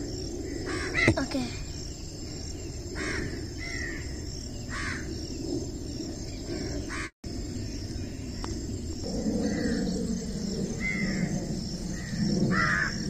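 Birds giving short, harsh calls every second or two, over a steady high insect drone.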